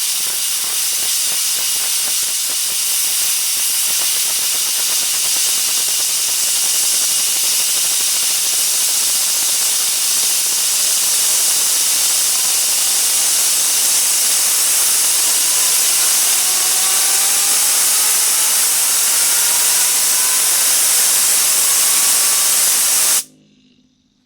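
Loud, steady hiss of compressed air from an air compressor blowing on a tungsten ring fidget spinner to spin it up, with a faint rising whine in the second half as the spinner gathers speed. The air cuts off suddenly near the end.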